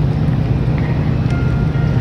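Strong wind buffeting the microphone: a steady, heavy low rumble, with faint thin high tones over it from about halfway.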